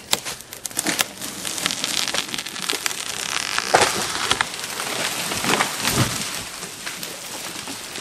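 A large pine tree falling: its branches crackle and snap with a rushing hiss of needles and limbs as it comes down, with a heavier crash about six seconds in.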